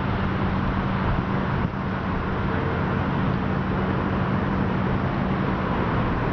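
Steady road traffic noise: a continuous rumble of passing vehicles with a low hum.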